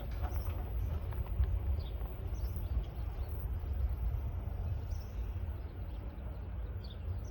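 Steady low outdoor rumble with small birds chirping faintly now and then.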